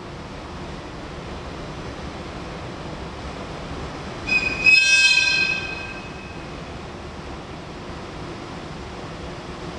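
Steady train and rail noise, with a loud, high-pitched squeal or whistle from the train lasting about a second and a half near the middle.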